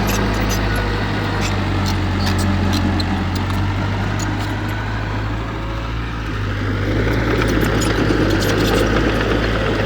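Heavy diesel earthmoving machinery running steadily, with scattered sharp metallic clicks and clanks, and the engine noise growing louder about two-thirds of the way through.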